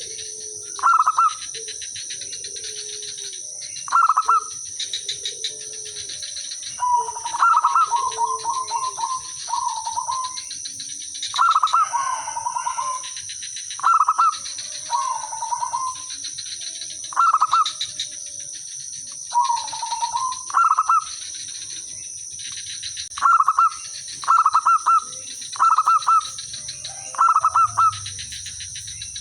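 Zebra doves (perkutut) cooing: short, rapid trilled coos repeating every two to three seconds, some stretched into a quick run of notes, as the birds answer one another.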